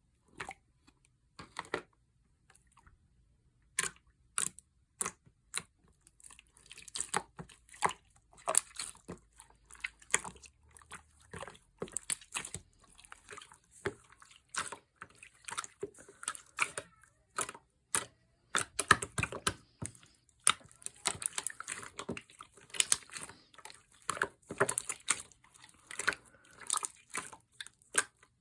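Clear slime being squished and pressed by hand, making many wet, sticky clicks and pops in quick, irregular succession. The clicks are sparse at first and come thick and fast from a few seconds in.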